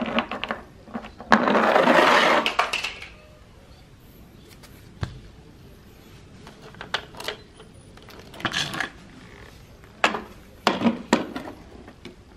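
Plastic toy vehicles rolling down a ramp track, their wheels rattling along it for about two seconds, followed by scattered knocks and clicks of plastic toys being handled and set down.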